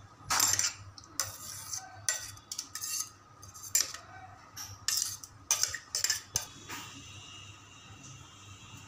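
A spoon scraping and knocking inside a steel mixer-grinder jar, with a run of sharp clinks and scrapes of metal as ground cucumber paste is emptied into a steel pot. The clatter stops about six and a half seconds in.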